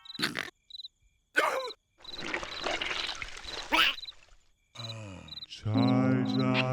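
Cartoon night-time soundtrack: a cricket chirping in short, evenly spaced pulses, with a few brief squeaky character vocal sounds and a hissing stretch in the middle. A falling sliding tone leads into music with held notes near the end.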